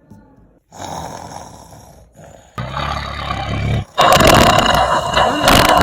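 Loud, exaggerated snoring: three long snores, each louder than the last, the third the loudest and longest.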